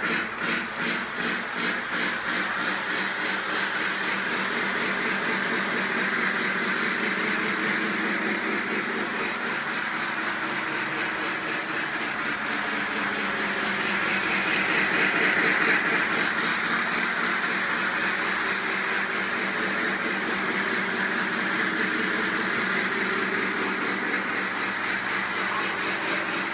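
Polar Express model train running on its layout track: a steady rolling rumble and wheel clatter, with a fast even pattern of strokes near the start. It grows louder about halfway through as the train passes close.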